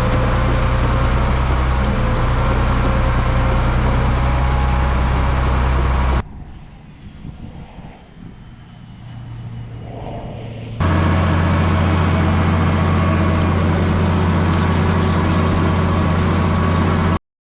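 Heavy farm machinery engine running steadily, with a quieter stretch in the middle; the sound cuts off suddenly near the end.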